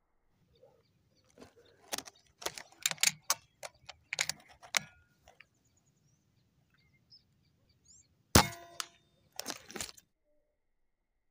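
Scattered clicks and knocks of rifle handling, then a PCP air rifle shot about eight seconds in: a single sharp crack with a short metallic ring, followed by a few smaller knocks.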